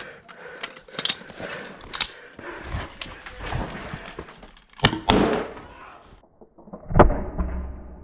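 Scattered clicks and rustling of a player moving with gear, then two sharp reports: a crack about five seconds in and a louder, deeper bang with a thump about seven seconds in. The louder report is an airsoft gas grenade launcher firing, described as loud.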